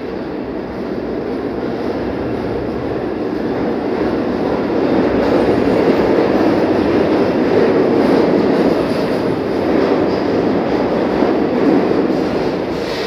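New York City subway R train pulling into an underground station on the far track: the rumble of its wheels on the rails swells from about two seconds in and stays loud as the cars run along the platform.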